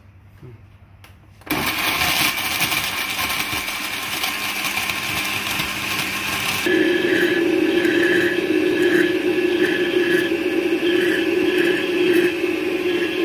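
Countertop blender starting up about a second and a half in, crushing ice with milk and chunks of mango and avocado in a loud, gritty whir. About halfway through, the ice is broken down and it settles into a smoother, steadier hum as the mixture turns into a smooth shake.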